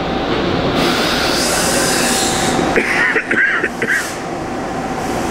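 Steady mechanical hum of a running Okuma MC-50H horizontal machining center, with a hiss that swells about a second in and fades near three seconds.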